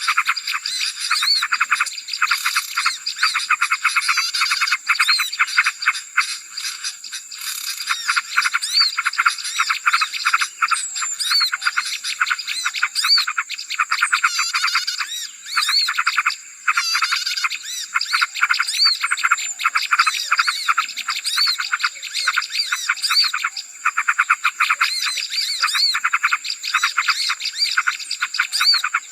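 Dense, noisy chatter of many small birds: rapid overlapping chirps and trills without a break, over a steady thin high whine. A bird-lure (pikat) recording played to draw small birds in.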